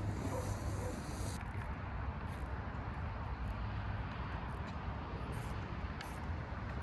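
Steady outdoor background noise with a low rumble, and a few faint clicks.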